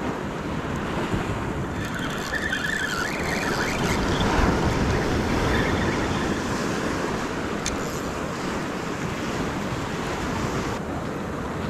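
Ocean swell surging and washing against a rock ledge below, with wind buffeting the microphone. A brief wavering high-pitched squeal comes about two seconds in, and a single sharp click comes near the middle.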